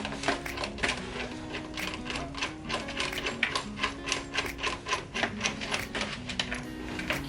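Hand ratchet wrench clicking in quick strokes, about three to four clicks a second, tightening the bolts that hold caster wheels onto a steel tool cabinet, over background music.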